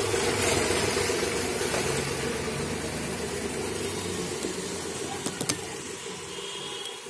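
Steady motor hum with an even hiss, broken by two sharp clicks about five seconds in, after which the hum eases off.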